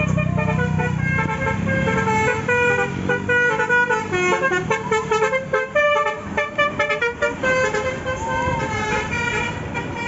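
Telolet bus horn, a Basuri-type multi-tone air horn, playing a quick tune of short stepped notes, over the low rumble of a passing tour bus's engine in the first couple of seconds.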